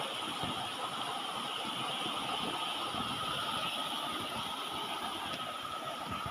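Small waterfall splashing steadily over rock into a shallow pool, an even rush of falling water.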